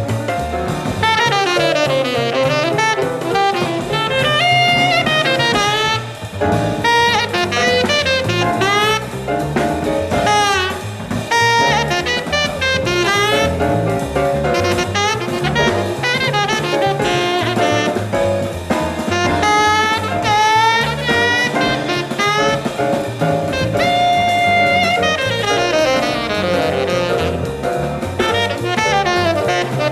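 Live small-group jazz: a tenor saxophone solos in quick running phrases over drums and rhythm section.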